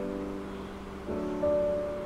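Background music of sustained keyboard chords, the chord changing about a second in.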